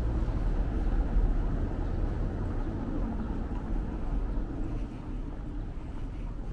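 Outdoor street ambience dominated by a low, fluctuating rumble that is loudest in the first second or so and eases off toward the end.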